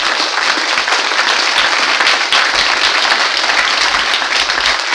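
Live audience applauding, many hands clapping at once, loud and steady.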